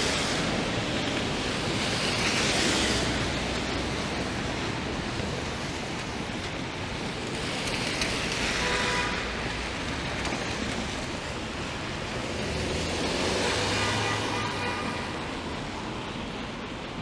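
Street traffic on wet pavement in steady rain: a constant hiss of rain and wet tyres that swells three times as vehicles pass and fades again.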